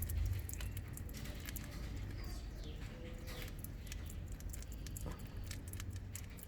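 African pygmy hedgehog chewing crickets: irregular wet, crunchy clicks over a low steady hum.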